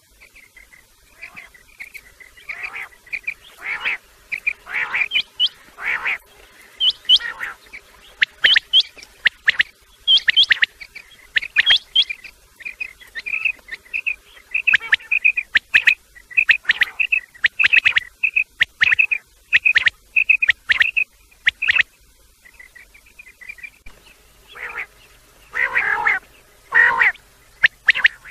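Quail calling, male and female calls mixed: a long run of short chirping notes, with a fast even series through the middle and a few louder, harsher calls near the end. It is a loud lure call for drawing quail in.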